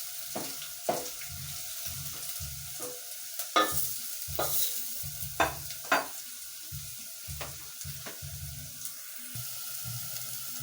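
Onions, ginger and garlic frying in oil in a sufuria with a steady sizzle, while a spoon stirs them and knocks against the pot several times. The sharpest knocks come around the middle.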